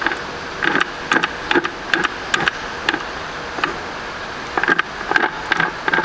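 VW Polo manual gearbox, out of the car, turned by hand on the bench: its shafts and gears give an irregular clicking and knocking, two or three times a second with a short pause midway. The noise is called horrible, and the mechanic suspects the bearings and the differential's ring and pinion.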